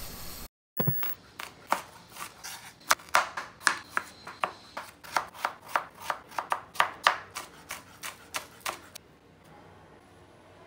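Chef's knife chopping a peeled potato on a wooden cutting board: a steady run of sharp knocks, about three a second, that stops about nine seconds in.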